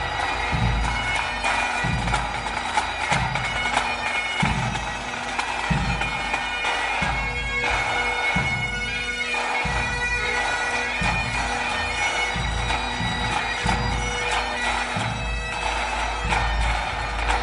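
Pipe band playing: Highland bagpipes sounding a steady drone under the chanter melody, with snare, tenor and bass drums beating time.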